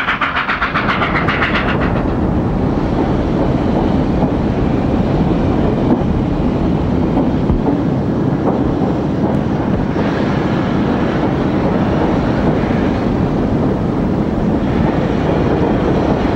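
Steam locomotive and train passing, a rapid, even beat that gives way after about two seconds to a steady rumble.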